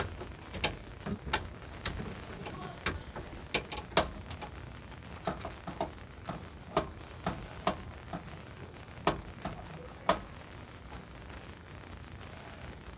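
Socket wrench ratchet clicking in short, irregular strokes while working a nut, sharp separate clicks a fraction of a second apart that stop about ten seconds in.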